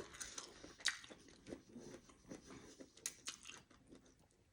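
Close-up chewing of fried sweet potato tempura: faint, irregular crisp crunches of the batter, with a sharper crunch about a second in and another a little after three seconds.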